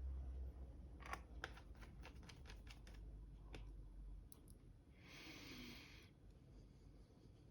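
Faint clicks and taps of small plastic laptop parts being handled, with a brief hiss lasting about a second near the end.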